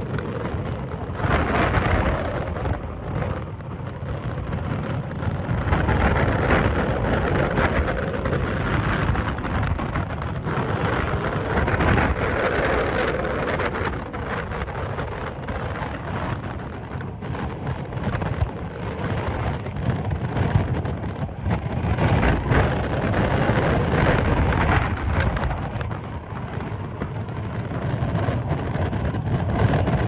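Hurricane-force wind and driving rain, a dense steady roar that swells and eases in gusts every few seconds, with wind buffeting the microphone.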